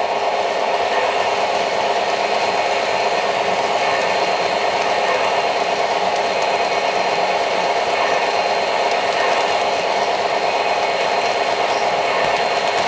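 O-gauge model diesel locomotive pulling a train of loaded coal hoppers past on three-rail track: a steady whirring rumble of its motors and the cars' metal wheels on the rails.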